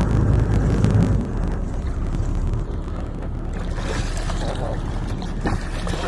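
Steady low rumble and wash of wind and sea water alongside a small boat, heavier for about the first second and then easing.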